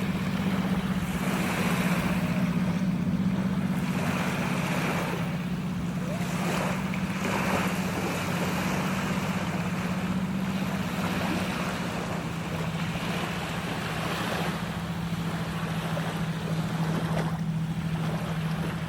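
A steady low motor hum under rushing, splashing water that swells and fades every couple of seconds; the hum drops slightly in pitch about halfway through.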